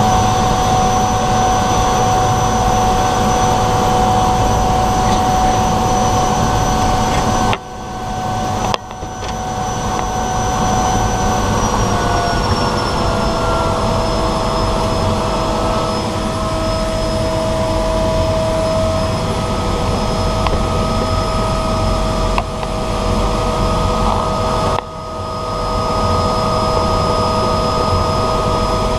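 De Havilland DHC-3 Otter floatplane's engine and propeller running at low taxi power, a steady drone with a high whine. The pitch steps down slightly about twelve seconds in, and the level dips briefly around eight and twenty-five seconds in.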